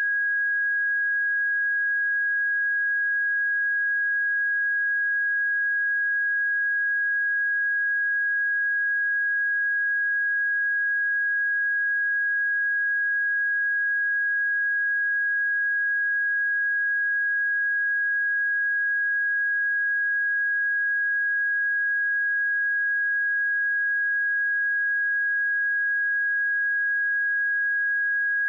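A steady pure sine-wave test tone at 1648 Hz, one unchanging high pitch with no other sound.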